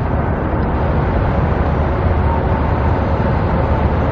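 Steady low vehicle rumble with a faint constant whine, unchanging throughout.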